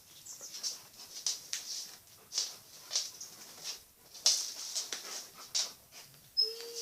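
Rottweiler-cross dog panting in short, irregular breaths, with a brief whimper near the end.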